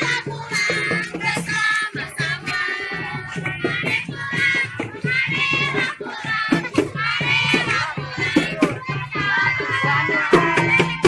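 Children singing, with music behind them.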